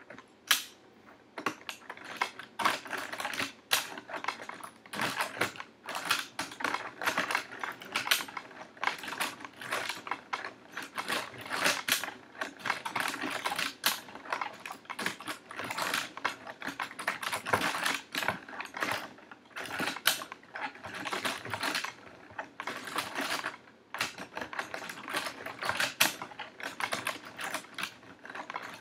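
A 3D-printed plastic mechanical computer running its program, its parts clicking and clacking rapidly and irregularly. The clatter starts suddenly at the outset and then keeps going.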